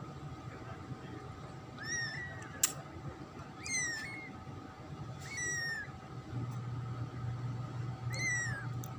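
Newborn kitten mewing: four short, high-pitched cries, each falling in pitch, a second or more apart. A single sharp click comes between the first and second cry.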